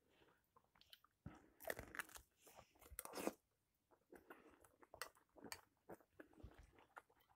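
Faint, irregular chewing: a person biting into and chewing a pan-fried game barley sausage with lingonberry crush, with small wet clicks and short mouth noises.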